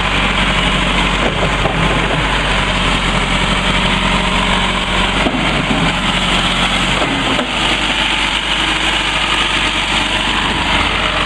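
Turbocharged diesel engine of a 1996 Caterpillar 446B backhoe loader idling steadily.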